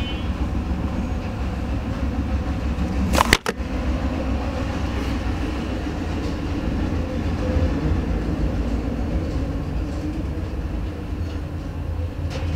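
Programme sound from the repaired LED TV's speakers: a steady, dense low rumbling noise, broken by one sharp click and a momentary dropout about three seconds in.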